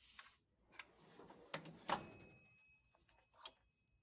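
A few faint, scattered clicks and light knocks, the loudest about two seconds in, over a very quiet background.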